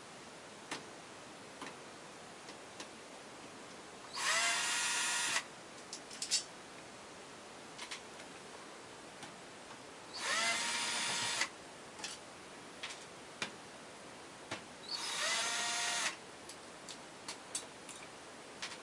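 Small electric drill-driver run in three short bursts, about a second each, its motor whine climbing in pitch as each burst starts, while screws are backed out of a TV during disassembly. Light clicks and taps of handling the parts between bursts.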